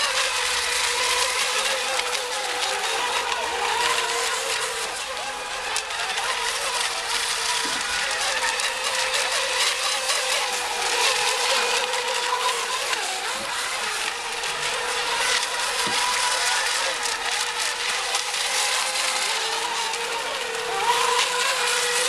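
Several electric RC racing boats running flat out, a steady high motor whine that wavers slightly in pitch over a continuous rushing hiss.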